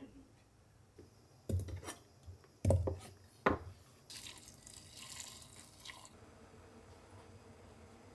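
A few heavy knocks as corn cobs are cut into pieces with a kitchen knife on a cutting board, then water running into a steel pot of cobs for about two seconds.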